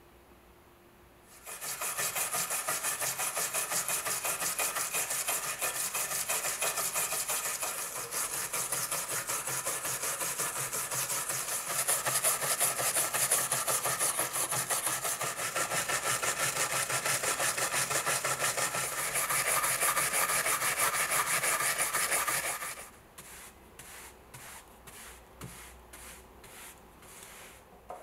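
Fast back-and-forth scrubbing of a brush on a rusty steel pocket-knife liner lying on a wooden block, the stiff bristles rasping off the rust. Starting about a second in, it goes on hard and fast for most of the time, then near the end turns to softer, separate strokes about two a second.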